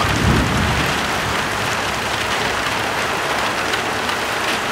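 Steady rain falling, an even hiss throughout, with a brief low rumble in the first second.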